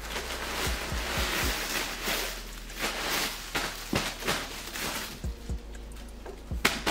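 Packing material rustling and crinkling as it is rummaged through and tossed out of a cardboard box, with scattered light taps and thumps against the box.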